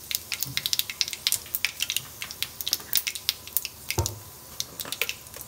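Whole spices (mustard seeds, nigella, fenugreek, fennel and cumin) crackling and popping in hot mustard oil in an aluminium kadhai, with many sharp irregular pops a second over a soft sizzle. A single dull knock comes about four seconds in.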